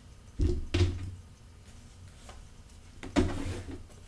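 A few short thumps and knocks on a tabletop, two close together near the start and another near the end, as tarot cards are handled and laid down.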